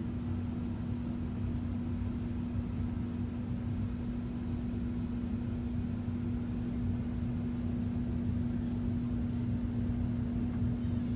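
Steady machine hum with a single constant low tone over a low rumbling noise, unchanging throughout.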